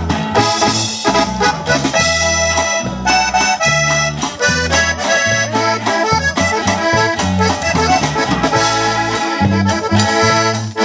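Live norteño band playing an instrumental break. An accordion leads the melody over a strummed twelve-string guitar, an electric bass moving steadily between notes, and a drum kit keeping the beat.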